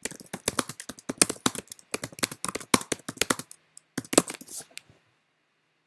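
Typing on a computer keyboard: a rapid run of key clicks for about three and a half seconds, a short pause, then a few more keystrokes before it stops about five seconds in.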